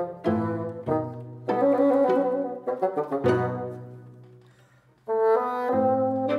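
Background music: an instrumental tune in short phrases. It fades almost to silence about four seconds in, then starts again about a second later.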